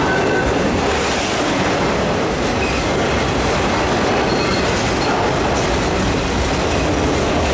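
Freight train of autorack cars rolling past close by: a steady, loud rumble and rattle of steel wheels on the rails, with a few short, faint wheel squeals.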